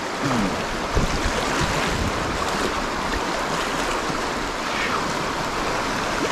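River water rushing through a shallow rapid and splashing around the bow of a small boat running it, a steady rushing noise with wind buffeting the microphone in low thumps.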